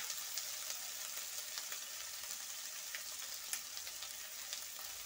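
Garlic and ginger paste frying with onions and tomato in mustard oil in a kadai over low-to-medium heat: a steady sizzle with many small crackles.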